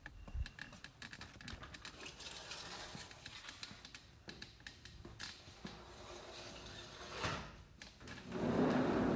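Handling noise from a phone microphone as the phone is carried through a doorway: scattered clicks and rustling, then a louder rubbing rumble near the end.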